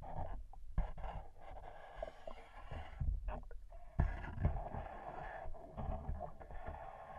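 Muffled rush of flowing river water heard through an underwater camera's housing, with irregular low thuds and knocks from the current buffeting the housing, the strongest about four seconds in.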